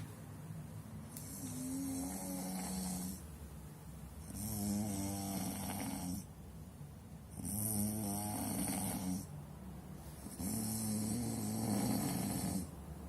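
A man snoring heavily, heard from the next room: four loud, rasping snores, one about every three seconds, each about two seconds long.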